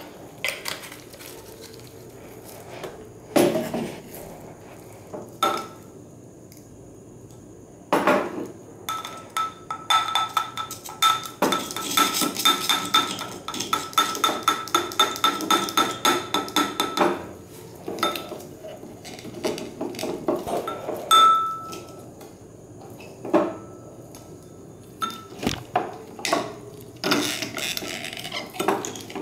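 A plastic syringe knocking, clicking and scraping against the inside of a glass beaker as it is worked in a thick, viscous liquid, with the glass ringing briefly. The knocks are scattered at first, then come as a fast run of clicks for several seconds through the middle.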